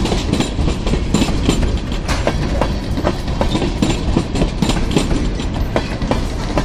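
Freight train of tank cars rolling past close by: a steady rumble of steel wheels on the rails, with frequent clicks and clacks as the wheels pass over rail joints.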